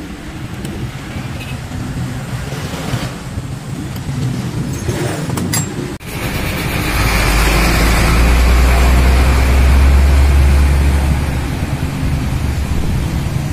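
A motor vehicle engine rumbling nearby, swelling to a loud deep rumble about seven seconds in and easing off near the end. A few sharp metal clinks from hand tools come shortly before it.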